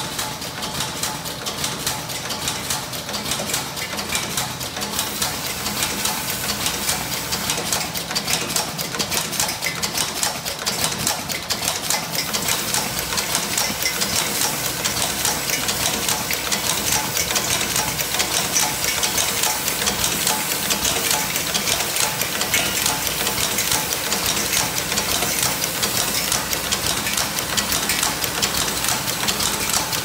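Automatic metal zipper slider inserting machine running, making a fast, continuous mechanical clatter of rapid clicks and rattles.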